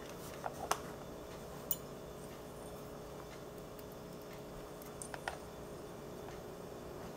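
A few scattered light clicks and taps from small parts and test leads being handled on a workbench, over a faint steady hum.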